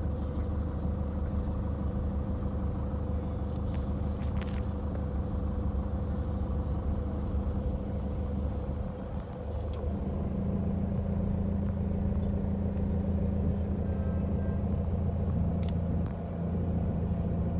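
Car engine running at low speed, heard as a steady low hum from inside the cabin while the car moves slowly through floodwater. The engine note shifts slightly about ten seconds in, and there are a few faint clicks around four seconds in.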